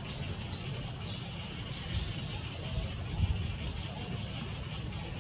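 Outdoor ambience: small birds chirping in short, high, scattered calls over a low steady rumble.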